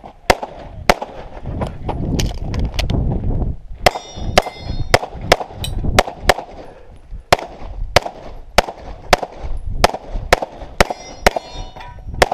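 A pistol fired in a rapid string of shots, many in quick pairs with short pauses between groups. A few hits ring on steel targets.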